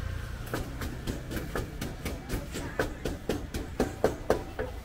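Pestle pounding in a mortar as papaya salad (som tam) is made: a steady knocking about four strokes a second, loudest near the end.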